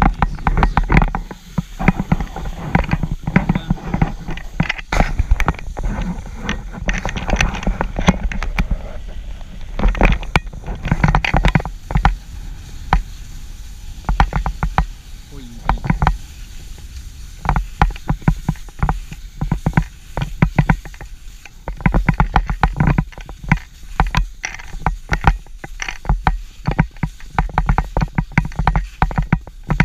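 Skis sliding fast over uneven packed snow, scraping and chattering in a continual run of quick knocks, thickest in the second half. A low rumble of wind on the microphone runs underneath.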